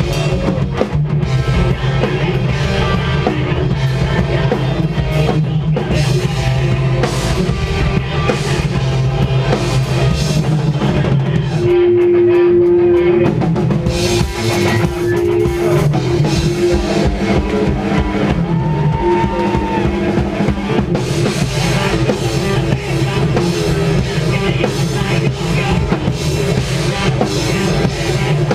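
Post-hardcore/metal band playing loud live: a drum kit and distorted guitars and bass. About twelve seconds in, the drums drop out briefly under a long held note, then the full band comes back in.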